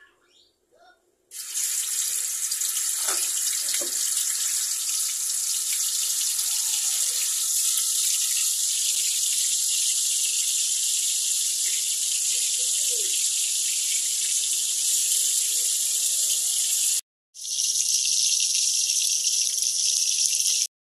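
Tofu pieces frying in hot oil in a wok: a loud, steady sizzle that starts suddenly about a second in as the tofu goes into the oil. It cuts out for a moment near the end and comes back.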